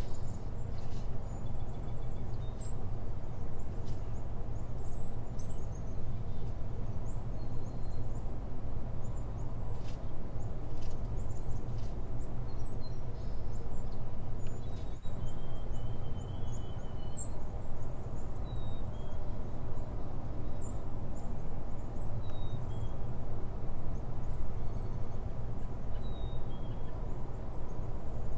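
Steady low background rumble with faint bird chirps scattered through it.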